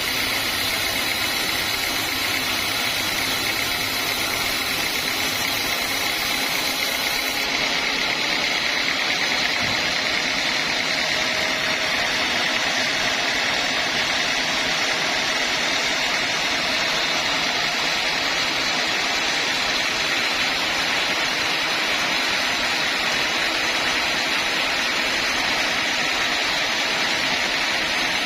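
Homemade band sawmill running steadily, a continuous machine drone with a steady high whine from the blade. The highest hiss drops away about seven seconds in.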